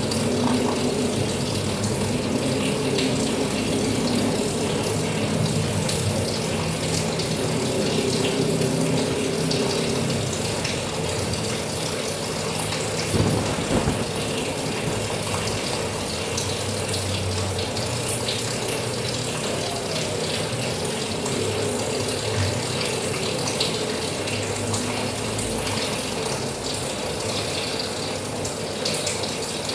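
Steady rain falling, a dense stream of small drop ticks over an even hiss, with a low rumble in the first half and a single louder knock about thirteen seconds in.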